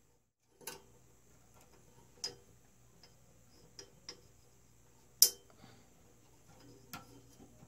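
Sharp, irregular metal clicks of a ball-end Allen wrench against the screws of a stepper motor mount as the screws are worked in at an angle. About six clicks, the loudest about five seconds in.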